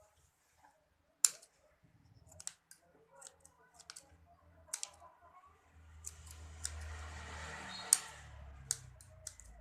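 Sharp snipping clicks, about eight spread irregularly, as putri malu (Mimosa pudica) stems and leaves are cut, with a stretch of rustling between about six and nine seconds.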